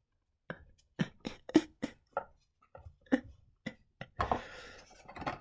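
Light knocks and taps from a cardboard box and trading cards being handled and moved on a desk, coming irregularly several to a second, with a short rustling slide about four seconds in.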